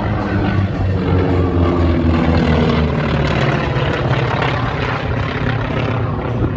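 Two North American T-28 Trojans flying a formation pass with their radial engines and propellers running at full power. The engine pitch drops as they go by.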